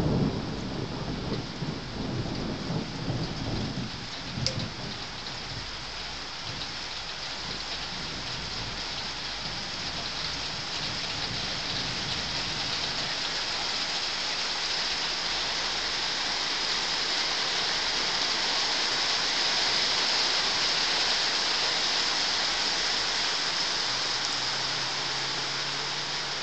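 Thunder rumbling in the first few seconds and dying away, then steady heavy rain that grows louder, heaviest a little past the middle. A single sharp click about four seconds in.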